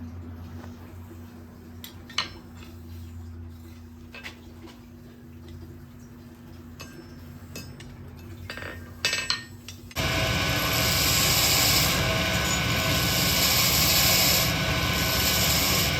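Steady low hum with a few light metallic clinks, then about ten seconds in a loud, steady rasping power-tool noise starts abruptly and keeps going.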